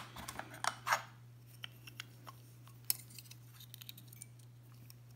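Small metal knife parts and a bit driver being handled: a quick run of sharp clicks and taps in the first second, then scattered light ticks, over a steady low hum.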